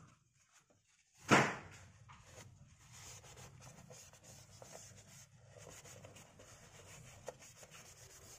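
Tissue paper wiping and rubbing inside a plastic scooter air-filter housing, a faint rustling, with one sharp thump about a second in.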